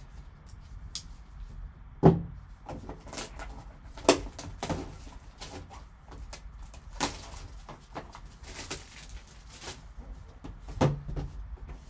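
Sealed cardboard trading-card box being picked up and turned over in gloved hands, with rustling and scraping and several sharp knocks of the box against the table, the loudest about two seconds in and near the end.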